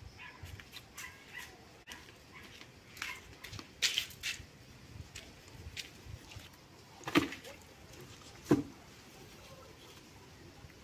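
A dog giving a few short, separate barks or yips, spread out over several seconds.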